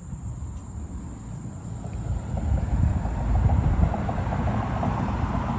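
Wind buffeting the microphone as a low, rumbling roar that grows louder about two seconds in, with a faint crackle over it.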